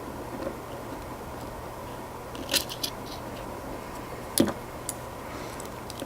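Small metal clicks and taps of padlock parts and tools being handled while an American Lock 1100 padlock is taken apart: a few scattered clicks, the loudest about four and a half seconds in, over a steady low hum.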